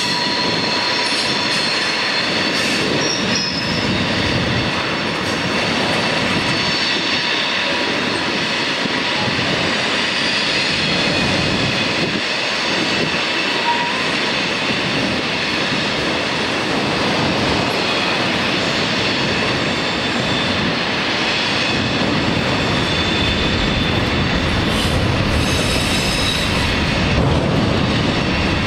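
Freight train of autorack cars rolling past: a steady rumble of steel wheels on rail, with a high-pitched squeal of several tones held at once, the wheel flanges squealing as the cars take the curve.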